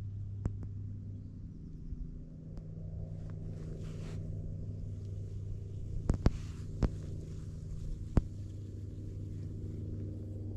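A vehicle engine running at a steady speed, with a few sharp clicks or knocks a little past the middle.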